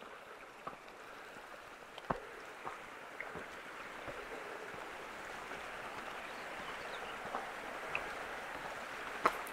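Steady rushing of a mountain creek below a waterfall, slowly growing louder, with a few scattered footsteps on a rocky trail.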